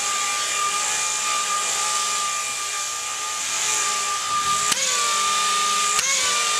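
Handheld gyroscope ball spinning fast, giving a steady high whine like a small drill. Twice near the end a click breaks in and the pitch briefly wavers before settling again.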